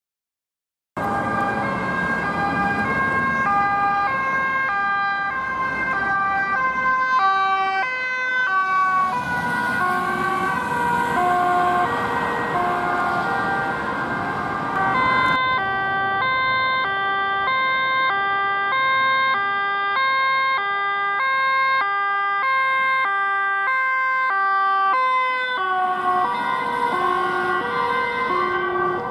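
Dutch police vehicles' two-tone sirens sounding on an urgent run, alternating steadily between a high and a low note. Two sirens are heard at once for part of the time, out of step with each other.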